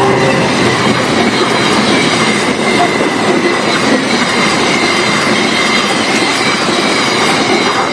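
Argo Parahyangan passenger train passing at speed: a loud, steady rush of wheels on rails and carriages going by, with a faint high wheel squeal.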